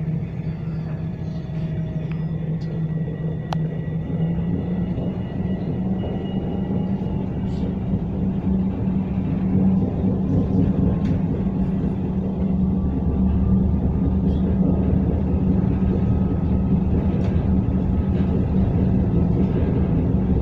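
Tram running along the street, heard from inside the car: a steady low hum and rumble that grows louder over the stretch, with a faint thin whine rising slowly in pitch.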